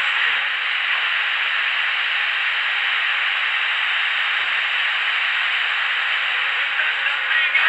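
FM radio receiver tuned to 100.00 MHz giving a steady static hiss with no station audible: the Sporadic-E signal has faded out into receiver noise.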